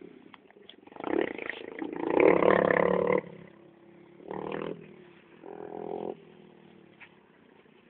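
125 cc dirt bike engine revving in bursts: a long, loud rev from about a second in lasting around two seconds, then two short blips of the throttle, with the engine running quietly in between.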